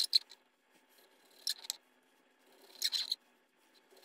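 Knife and metal tongs slicing a seared steak on a cutting board: short, sharp clicks and scrapes, coming in pairs about every second and a half.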